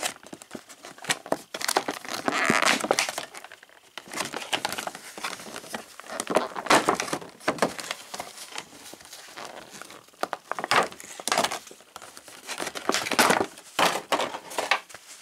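Clear plastic clamshell packaging crinkling and crackling in irregular bursts as hands pull a cloth cape free of it.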